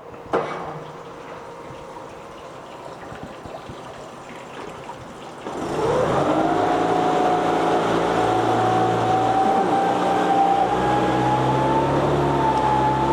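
A 2022 Mercury 9.9 hp four-stroke outboard, electric start, starting up about five seconds in after a quiet stretch. Its pitch rises quickly as it catches, then it settles into a steady idle with a whine that creeps slightly higher.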